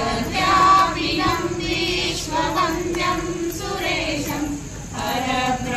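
A group of women singing a devotional bhajan together.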